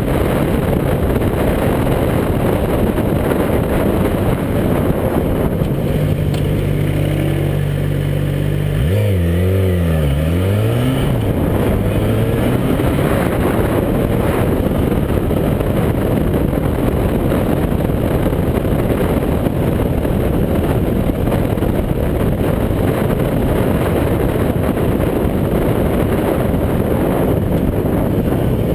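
Motorcycle engine running under way, mixed with a heavy rush of wind on the microphone. About nine seconds in, the engine note dips and climbs again.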